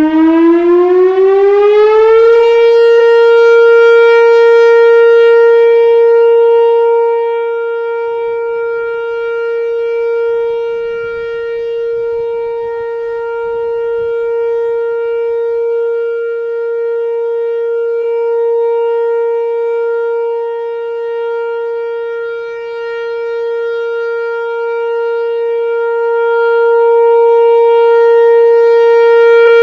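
Whelen WPS-4004 electronic outdoor warning siren sounding its steady Alert signal, a 465 Hz tone. It winds up in pitch over the first two or three seconds, then holds one loud, steady note; the sound fades somewhat about seven seconds in and swells back near the end.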